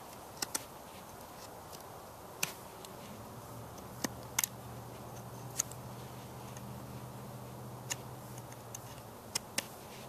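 A knife whittling a small piece of wood: sharp, separate clicks as the blade takes short cuts, about nine of them at an uneven pace.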